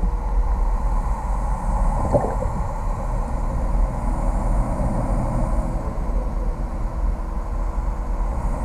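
Muffled underwater rumble of an indoor fishing pond recorded from below the surface, with a steady low hum and a couple of faint knocks about two seconds in.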